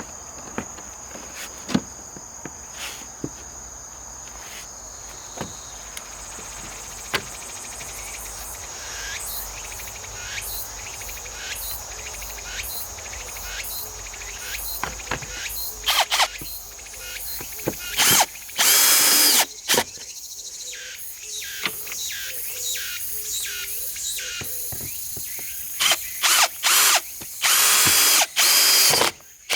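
Power drill/driver run in short bursts, twice for a second or two and then several times near the end, driving the screws of a car's air cleaner housing, with scattered clicks of plastic parts being handled. Cicadas keep up a steady high buzz underneath.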